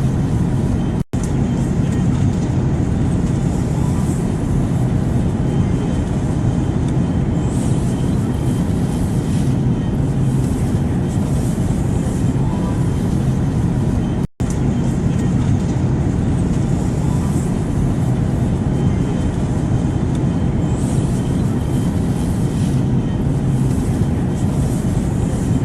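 Airplane noise used as white noise: a steady, low, even drone with no change in pitch. It cuts out for an instant twice, about a second in and again about fourteen seconds in.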